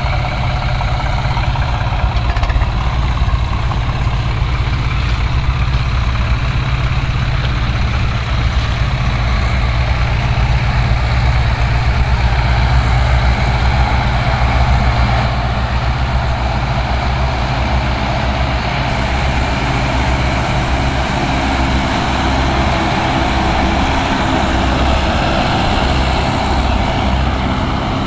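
Tractor diesel engines running steadily under load, with a constant low engine note.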